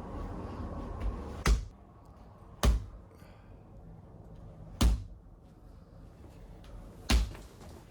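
Four sharp knocks of a chiropractic mallet (a 'Russian hammer') striking a patient's back along the spine, spaced one to two seconds apart.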